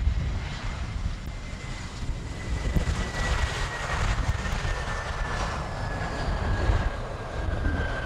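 Jet airliner's engines passing near the airport: a steady low rumble with a high engine whine that slowly falls in pitch as the plane goes by.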